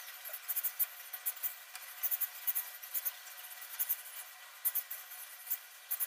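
Cockatiels moving about their cage, making scattered, irregular small high clicks and scratches over a faint hiss, with no calls.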